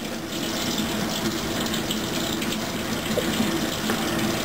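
Kitchen faucet running a steady stream of water into a stainless steel sink.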